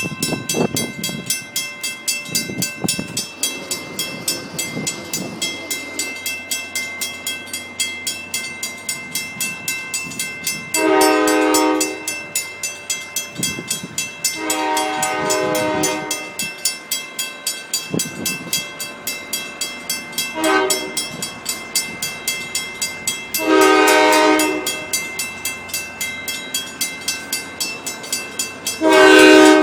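Train horn sounding long, long, short, long, the grade-crossing signal, then starting a new long blast near the end, over the steady rapid clicking of wheels passing over rail joints.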